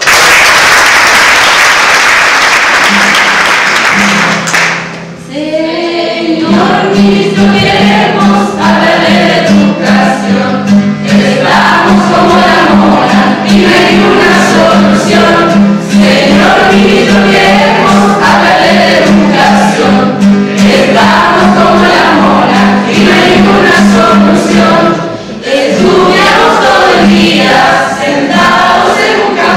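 Audience applause for about five seconds, then a group of voices singing together over a steady low held note.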